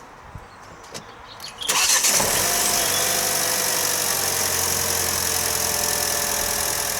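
A vehicle engine is started, catching quickly about a second and a half in after a few light clicks, then settles into a steady fast idle whose pitch eases slightly down. It is the donor vehicle, left running so its alternator charges the motorhome's flat battery through jump leads.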